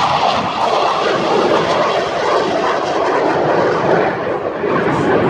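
Twin General Electric F404 turbofans of a CF-18 Hornet fighter jet in flight: a loud, steady jet roar.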